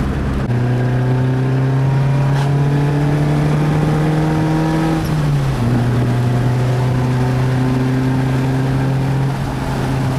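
Mazda Protege's four-cylinder engine pulling under way, its note rising slowly, then dropping at an upshift about five seconds in and climbing steadily again.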